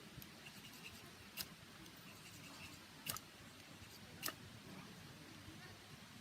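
Campfire wood crackling: three sharp pops spread over a few seconds, over the faint steady murmur of a small stream.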